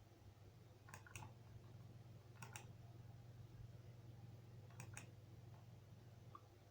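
Faint clicks at a computer: a quick double click about a second in, a single click midway, another double click about five seconds in and a faint click near the end, over a low steady hum.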